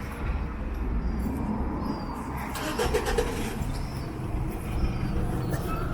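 Road traffic: a motor vehicle passing with a steady low rumble, with a few brief clicks about halfway through.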